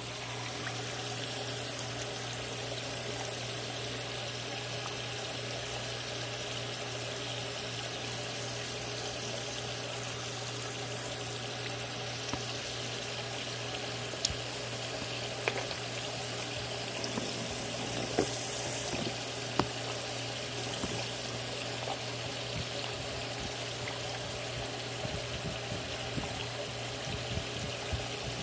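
Turtle tank water churning steadily over a constant low hum, as from the tank's filter running, with a few sharp knocks around the middle.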